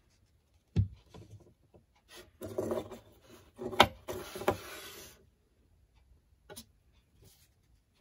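Plastic housing pieces of a refrigerator compressor start relay handled on a plywood board: a knock about a second in, then a few seconds of scraping and rubbing with a sharp click in the middle, and a few light clicks near the end.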